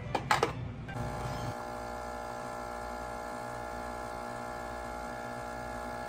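Coffee machine running as it dispenses coffee into a cup: a steady electric hum starting about a second in, after a couple of short clicks as the cup goes in and the machine is started.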